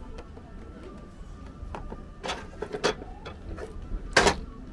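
Plastic capsule and outlet flap of a gachapon capsule vending machine knocking as the capsule is fished out of the dispenser: a couple of light clicks, then a louder clack near the end.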